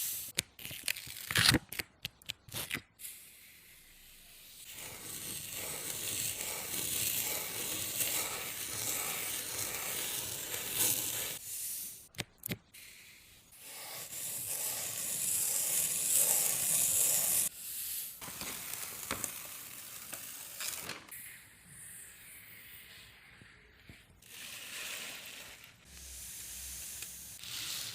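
Dry rustling and hissing from something being handled, in stretches of a few seconds, with a run of sharp clicks a second or two in and again about twelve seconds in.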